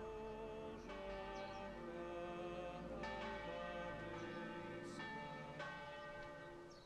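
Church bells ringing: three strikes a couple of seconds apart, each with long ringing overtones, fading away at the end.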